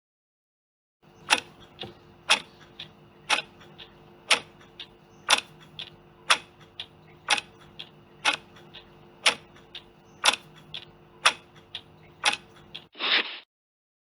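Clock ticking sound effect: a loud tick about once a second, with softer ticks in between over a faint steady hum, starting about a second in. A short burst of noise ends it near the end.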